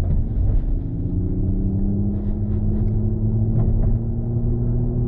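Smart #1 Brabus's synthesized drive sound played through the cabin speakers: a hum of several low tones that rises a little in pitch over the first two seconds, then holds steady, over low road and tyre rumble.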